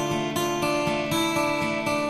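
Background music of held, plucked chords that change every half second or so.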